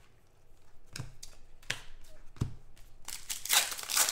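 Trading cards handled by hand: a few light clicks of card edges, then card stock sliding and rustling against card near the end.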